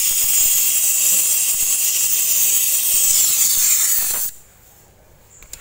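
Brazing torch flame hissing steadily on a refrigerator's refrigerant pipe joint, stopping abruptly about four seconds in.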